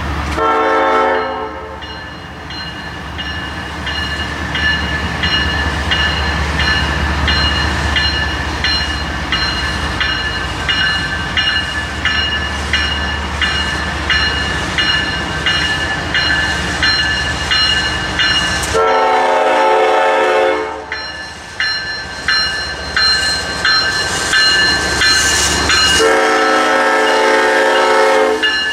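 Diesel freight locomotive's air horn sounding three blasts: a short one at the start, a longer one about two-thirds through, and a long one near the end as the locomotive passes. Between the blasts a bell rings steadily, over the low rumble of the approaching locomotive.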